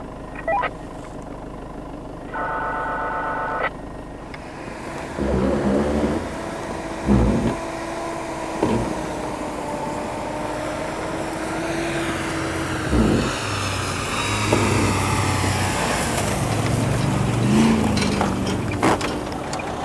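A 4x4 SUV's engine running as it drives across snow toward and past the camera, growing louder in the second half. Several heavy thumps are heard along the way.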